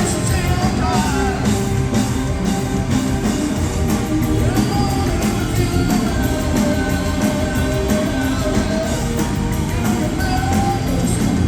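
Live rock band playing loud and steady, full drums and bass under a lead melody line that slides and bends in pitch.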